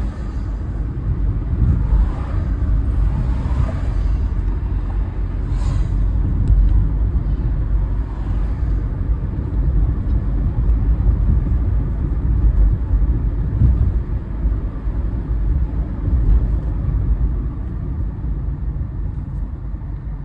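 City street traffic: cars driving past with a constant low rumble, with a few louder passes in the first few seconds.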